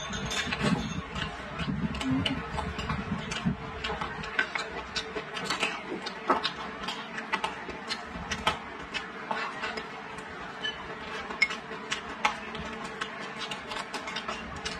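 Close-up eating sounds: chewing a mouthful of rice and vegetables with many small, sharp clicks and smacks from the mouth and chopsticks, over a faint steady hum. Duller handling sounds in the first few seconds give way to just the clicks and chewing.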